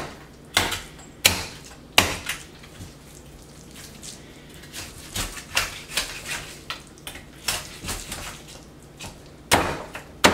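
A heavy knife chopping and prying through a red snapper's backbone and ribs against a wooden cutting board. Three sharp knocks come in the first two seconds, softer clicks and taps follow, and two more loud knocks come near the end.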